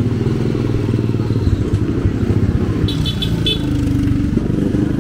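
Motorcycle engine running close by, loud and low with rapid firing pulses, and four quick high-pitched peeps about three seconds in.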